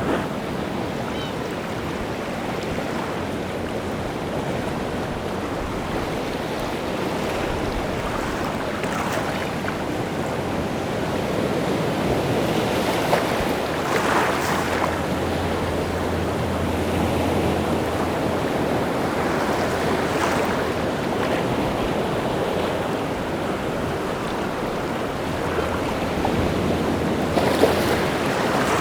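Rough sea waves breaking and washing onto the shore in a continuous rushing roar, with several louder breakers swelling and falling away, and wind on the wind-churned sea.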